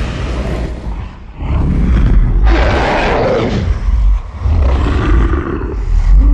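Monster roar sound effects made for the American Godzilla of the scrapped 1994 film: a run of deep, loud roars and growls over a heavy low rumble, with short breaks about a second in and about four seconds in.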